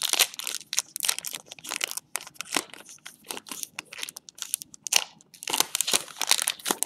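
Foil wrapper of a Pokémon trading card booster pack crinkling and crackling in irregular bursts as it is squeezed and pulled at to tear it open; the pack does not open easily.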